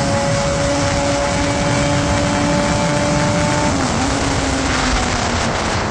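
Carbureted Honda Hornet 600's inline-four engine running loud at a steady pitch, the revs dipping slightly about four seconds in.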